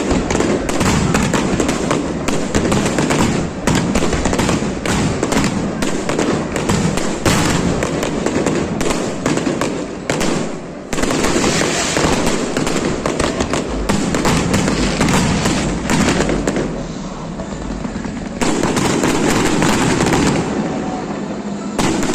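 Fireworks display: a rapid, continuous barrage of bangs and crackling. It dips briefly about halfway and eases for a couple of seconds near three-quarters of the way through before picking up again.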